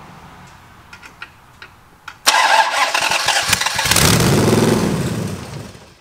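Chrysler 361 big-block V8 on a run stand cranked over after a squirt of fuel down the carburetor. It starts suddenly about two seconds in, catches and runs up briefly, then winds down and dies near the end as it runs short of fuel; the tank was not filled enough.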